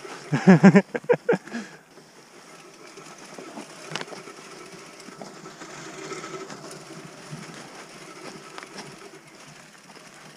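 Mountain bike tyres rolling downhill over leaf litter on a forest trail: a steady rustling noise with a few scattered knocks. A person's voice calls out briefly at the start.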